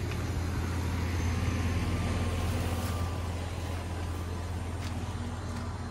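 Goodman central air-conditioning condenser units running: a steady low compressor hum under the whoosh of the condenser fan, with a few footsteps on gravel.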